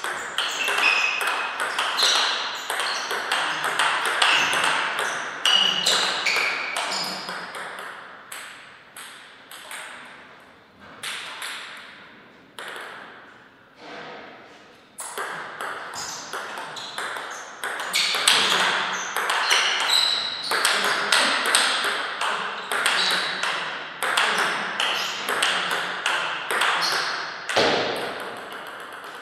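Table tennis rallies: the ball clicking off the bats and bouncing on the table in quick back-and-forth strokes, each hit with a short high ping. There are two rallies, with a quieter stretch of a few scattered bounces between them.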